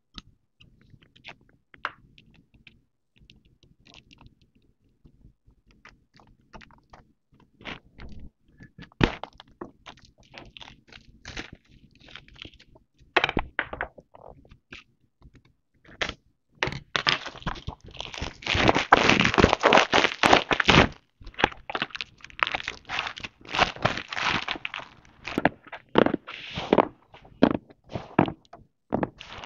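Holographic gift wrap being handled on a box: scattered snips and taps at first, then the crinkly wrap crackling and tearing loudly for several seconds past the middle as it is pulled off, with more crinkling after.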